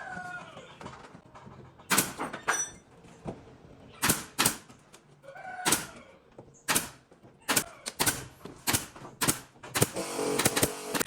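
A dozen or so sharp, irregular knocks and taps on wood, typical of fitting and fixing wooden ceiling boards by hand. A power tool starts running near the end.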